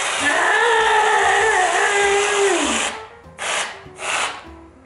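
Aerosol can of whipped cream spraying in a long hiss, then sputtering in short hissing spurts about three and four seconds in as the can runs low.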